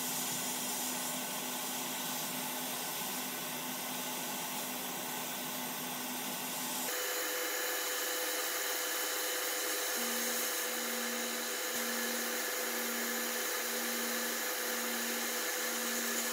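Sandblasting gun hissing steadily as abrasive is blasted against a rusty cast iron cornbread pan, stripping the rust to bare metal. The hiss changes character abruptly about seven seconds in, and later a low hum pulses about once a second beneath it.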